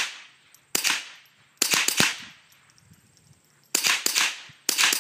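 A .22 LR rifle firing about six sharp shots in quick, uneven succession, each followed by a short reverberating tail.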